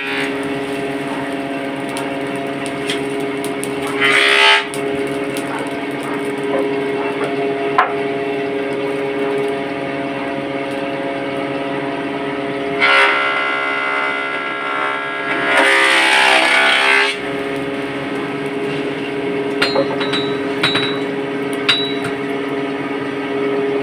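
Blacksmith's coal forge blower running with a steady whine, swelling louder for a few seconds now and then. In the last few seconds, several sharp ringing hammer blows on hot iron on the anvil.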